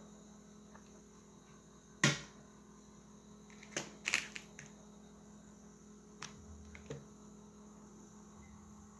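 Handling noise: a few sharp clicks and light knocks, the loudest about two seconds in, over a steady low mains hum.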